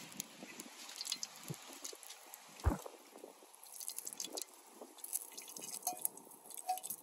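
Curry chicken cooking in a pot over a wood fire: faint, scattered crackling and sizzling, with one dull knock a little before the middle.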